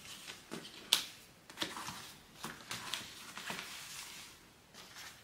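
Cut vinyl and canvas pieces and a paper pattern being handled on a tabletop: faint rustling and light taps, the sharpest tap about a second in.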